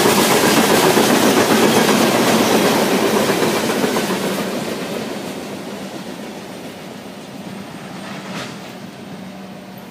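Loaded coal hopper cars of a freight train rolling past on the rails. The sound is loud at first, then fades steadily from about four seconds in as the end of the train passes and draws away.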